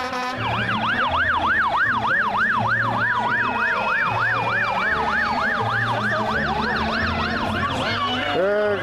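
Fire engine siren on a fast yelp, rising and falling about three times a second, with a second siren's tone slowly dropping in pitch beneath it. Near the end the yelp stops and a lower-pitched sweep takes over.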